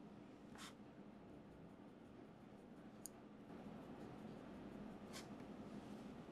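Faint, near-silent room with a low steady hum; a felting needle poking into wool gives two short, soft scratchy sounds, about half a second in and again about five seconds in, with a small sharp click around three seconds in.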